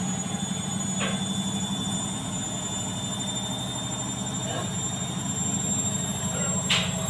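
Washing machine running: a steady motor hum with a thin high whine above it, and a light click about a second in and another near the end.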